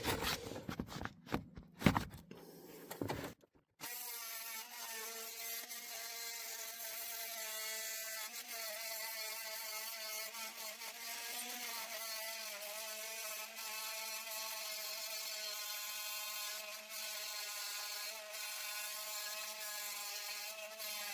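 Detail saw cutting through copper, running steadily with a buzzing hum from about four seconds in. A few knocks and clicks come before it starts.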